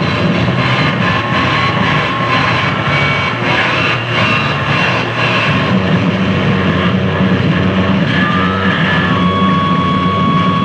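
Live harsh noise performance: a loud, unbroken wall of distorted electronic noise from effects pedals and electronics, with high held tones that come and go over it.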